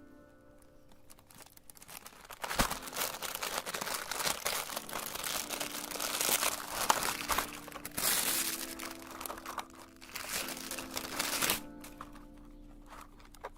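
Background music, with loud crinkling and crackling over it from a few seconds in until near the end, broken by two short pauses.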